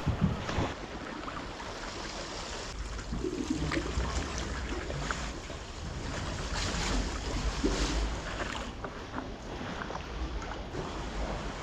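Sea water splashing and lapping, with wind rumbling on the microphone and scattered small splashes.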